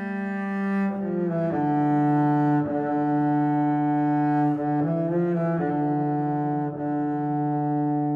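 Background music: a slow melody of long held low string notes, changing pitch every second or two.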